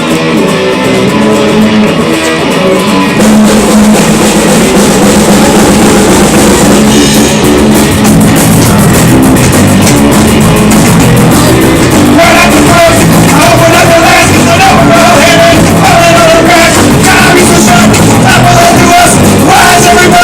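Live amateur rock band playing loud with drum kit, bass and electric guitar; a held melody line comes in about twelve seconds in.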